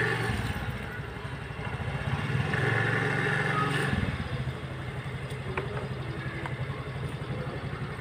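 A small engine running with a steady low hum, louder for a second or so before dropping off sharply about halfway through.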